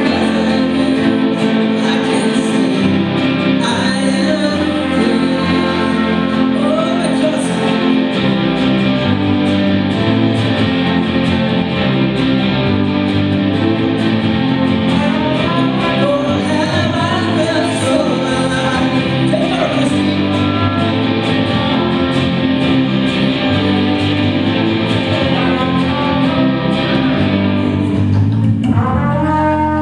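A live worship band playing a song, with singing voices, acoustic guitar, keyboard and a drum kit keeping a steady beat.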